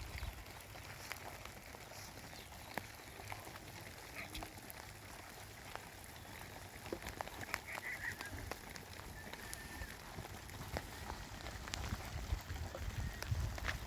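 A few short animal calls, like poultry or frogs, over scattered clicks and knocks, with a low rumble near the end.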